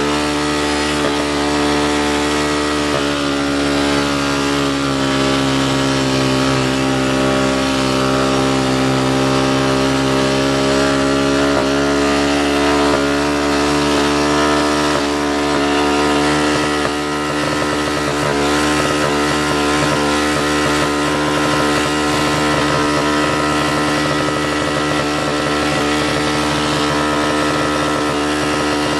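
ATV engine running under way, its pitch rising a little over the first dozen seconds and then settling, holding steady through the rest.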